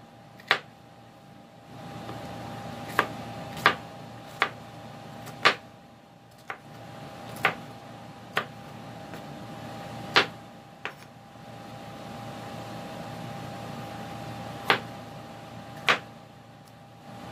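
Kitchen knife cutting a green bell pepper on a wooden cutting board: about a dozen sharp knocks as the blade goes through the pepper and hits the board, at an uneven pace with a pause of a few seconds late on.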